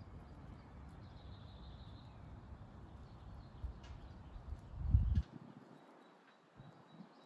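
Outdoor ambience: a steady low rumble that swells to a loud thump about five seconds in and then stops abruptly, with a faint high bird call in the first two seconds.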